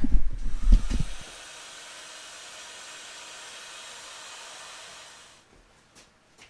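Heat gun blowing steadily for about four seconds while shrinking heat-shrink wire connectors, then fading out as it is switched off. A few low handling knocks come just before it.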